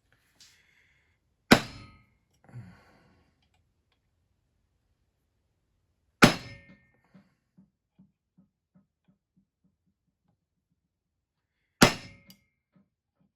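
Three sharp hammer blows on steel, about five seconds apart, each with a short metallic ring, driving a steel ball bearing through the bore of a new cam plate pin to size it. After the second blow, a run of faint ticks that come faster and die away, like something small bouncing to rest.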